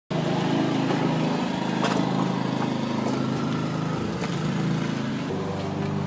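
An engine running steadily, its pitch shifting a little about four seconds in, with a sharp click about two seconds in.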